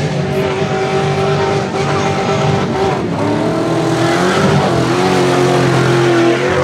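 Jeep Grand Cherokee tough truck's engine running hard at high revs on a dirt course; the revs drop briefly about three seconds in, then climb again, with the tires churning dirt.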